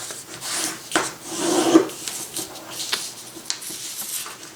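Two sheets of paper being folded together: rustling and the rub of fingers pressing a crease flat. The loudest stretch is about a second in, with a few sharp crackles later.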